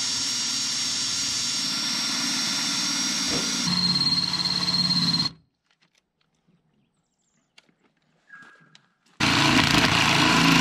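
Cordless drill running under load as it bores through the truck's roof sheet metal, with a steady motor whine; the pitch drops about four seconds in as the bit bites. The drill stops about five seconds in, a few light clicks follow, and it starts drilling again, louder, near the end.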